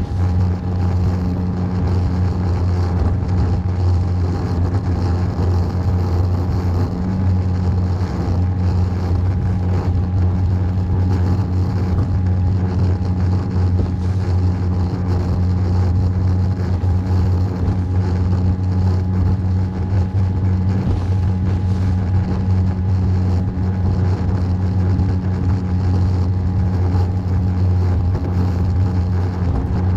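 Small fishing boat's engine running steadily at cruising speed, a constant low drone with a faint steady whine above it.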